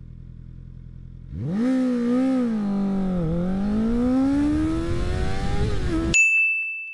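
Honda CBR650R's inline-four engine idling, then launched hard about a second and a half in, the revs climbing steeply with a dip at each of two gear changes during a full-throttle acceleration run. Near the end the engine sound drops out abruptly and a short, high, steady beep sounds.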